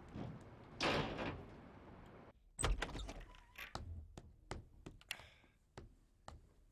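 Door sounds: a door swinging shut about a second in, then a heavy thump about two and a half seconds in followed by a string of short clicks and knocks.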